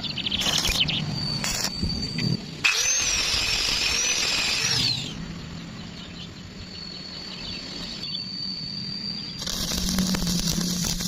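Shop power tools heard in short, abruptly cut segments: a steady high-pitched whine, then a whine that rises and falls in pitch, and near the end a dense crackle.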